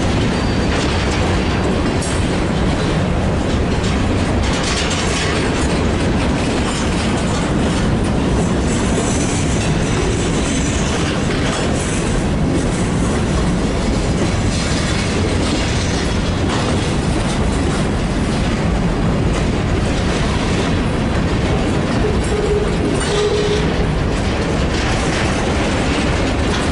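BNSF covered hopper cars of a grain train rolling past close by: a steady rumble of steel wheels on rail with repeated clickety-clack as the trucks cross rail joints.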